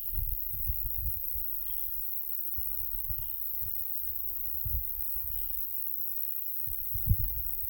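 Wind buffeting the microphone in irregular low gusts, strongest about seven seconds in. Faint short bird chirps repeat about once a second, over a steady high insect hiss.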